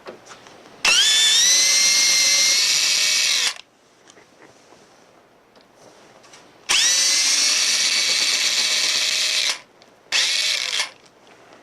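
Power drill/driver backing out screws in three runs, each opening with a whine that rises and then holds steady. The first two runs last about three seconds each, and the last is under a second, near the end.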